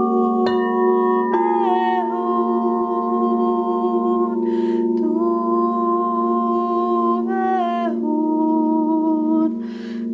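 Quartz crystal singing bowls ringing in a steady low drone while a woman sings long, held, wordless tones over them, moving to a new pitch every few seconds. Two in-breaths are heard, one about four and a half seconds in and one near the end.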